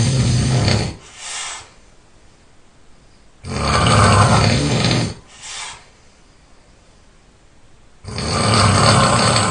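A person snoring loudly while ill: three long snores about four and a half seconds apart, each followed by a short, quieter breath.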